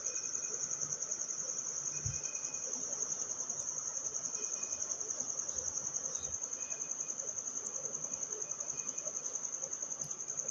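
Insects chirping: a steady, high-pitched trill pulsing many times a second.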